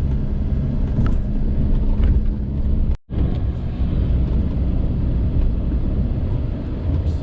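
Car driving slowly: a steady low engine and road hum that drops out abruptly for a split second about three seconds in.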